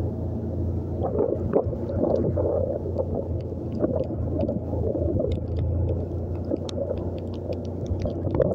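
Motorcycle engine running steadily while riding over a wet, potholed road, with scattered clicks and knocks from the rough surface.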